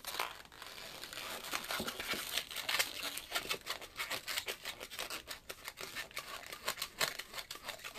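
Latex twisting balloon being handled and twisted into a string of small bubbles: a run of irregular, crinkly clicks of stretched latex rubbing against itself and the fingers.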